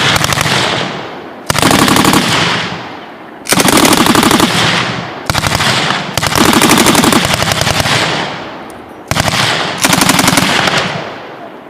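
Vektor SS-77 7.62 mm general-purpose machine gun firing short bursts of automatic fire: about six bursts, a second or two apart, each a rapid string of shots followed by a long rolling echo.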